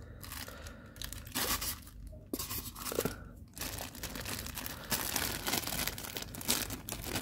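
Clear plastic bag crinkling and tearing in repeated crackles as hands pull it open to free a resin figure part, louder from about a second and a half in.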